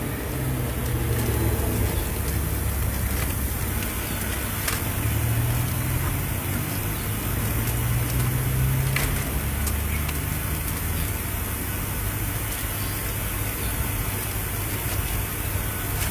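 Steady low rumble of road traffic, with a few light clicks now and then.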